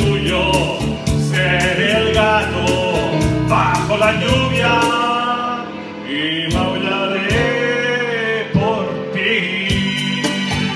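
A man singing a Spanish-language pop ballad into a microphone, holding long notes, over keyboard accompaniment with a steady beat.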